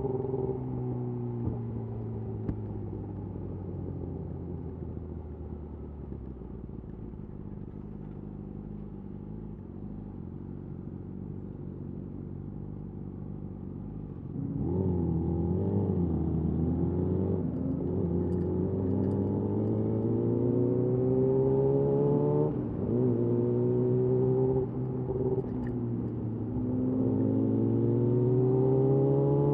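Yamaha YZF R6's inline-four through a de-catted Akrapovic slip-on exhaust. For the first half the revs sink slowly as the bike rolls along off the throttle. About halfway through it gets louder and accelerates, the pitch climbing, dipping at each of several gear changes and climbing again.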